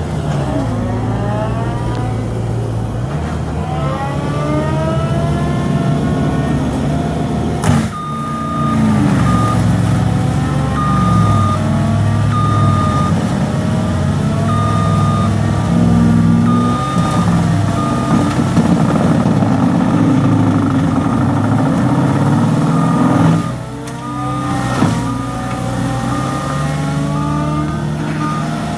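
Caterpillar skid steer loader's diesel engine and hydraulic drive working, pitch rising and falling as it manoeuvres, with its reversing alarm beeping about once a second for long stretches. A few sharp knocks break in near the middle and again near the end.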